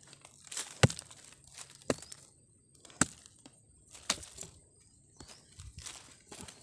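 Long steel blade chopping into hard, dry soil and roots around a plant being dug up: four sharp strikes about a second apart, with smaller knocks between them. Near the end they give way to softer scraping of soil being pulled away by hand.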